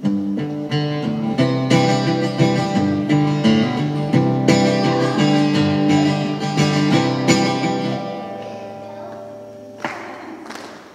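Acoustic guitar strummed in a steady rhythm of chords. About eight seconds in, the playing stops and the last chord rings out and fades. A short sharp noise comes near the end.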